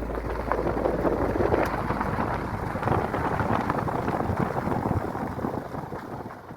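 Rushing water: a dense, steady wash of noise that fades out near the end.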